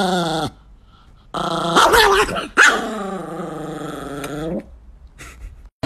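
Chihuahua growling in three stretches. The middle one breaks into a couple of sharp yaps about two seconds in, and the last one is a long, drawn-out growl.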